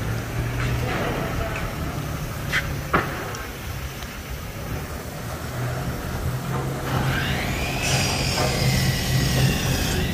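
Semi truck's diesel engine idling, a steady low hum. Two sharp clicks come about two and a half to three seconds in, and a high whine rises about seven seconds in and holds until near the end.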